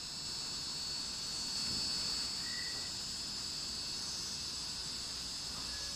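Meitetsu 3100 series electric train standing at the platform, its onboard equipment giving a steady high-pitched whine and hiss over a low rumble. A brief beep sounds about two and a half seconds in.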